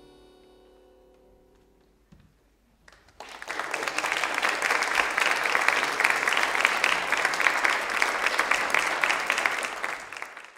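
The last chord of a harmonica and piano dies away into a brief hush. About three seconds in an audience breaks into steady applause, which fades out near the end.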